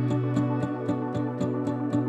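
Background music: evenly paced plucked notes, about four a second, over a steady low held tone.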